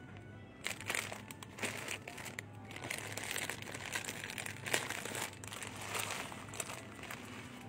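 Plastic-wrapped instant noodle packs crinkling and rustling as they are handled, starting about half a second in, over a steady low hum.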